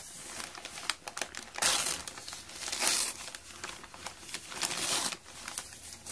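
Packing wrapping crinkling and crumpling as shipped plant cuttings are unwrapped by hand, in irregular rustling bursts that are loudest about two and three seconds in and again near five seconds.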